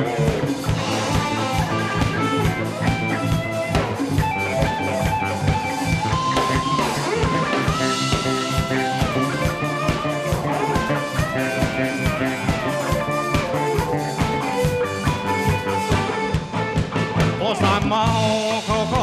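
Live rock band playing an instrumental passage: electric guitars and keyboard over a steady drum-kit beat, with hand drums.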